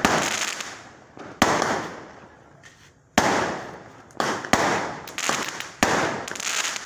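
Fireworks going off: about six sharp bangs, each trailing off over a second or so, with a short lull about two to three seconds in.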